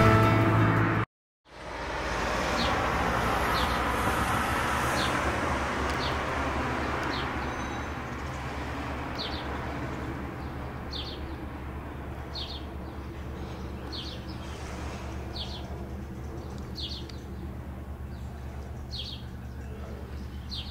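The last second of intro music, a brief dropout, then the steady drone of a Bombardier CL-415 water bomber's twin turboprops in flight, slowly easing off. A bird chirps every second or so over it.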